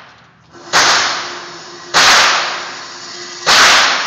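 Three shots from a Glock 21 .45 ACP pistol, fired about a second and a half apart. Each is a sharp crack that trails off in a long echo.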